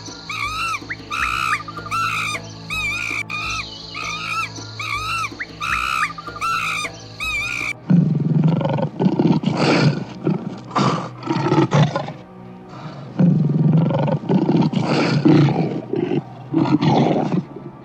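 Background music with a steady low drone. For the first half there is a run of repeated high chirping calls. From about eight seconds in, a big cat gives loud, rough roars and growls in a series of bursts.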